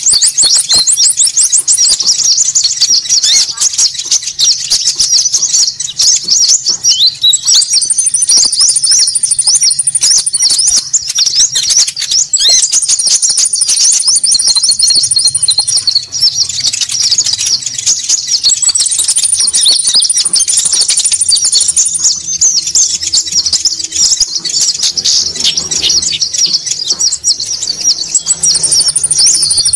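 Konin birds chattering noisily and continuously in high-pitched notes, a bird-lure (pikat) recording of agitated calls meant to draw birds in. A rapid, very high trill of two to three seconds breaks in over the chatter four times.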